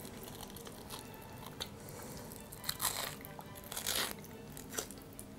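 Wet crackling and tearing as the scalded outer membrane is pulled off raw beef liver by hand, with a few louder crackles around three and four seconds in.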